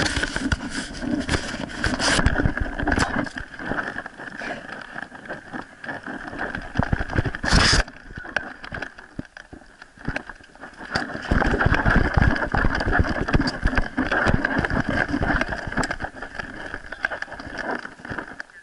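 Rumbling, rubbing handling noise from a camera strapped to a Springer Spaniel puppy as she moves about and runs through snow, with one sharp thump about seven and a half seconds in.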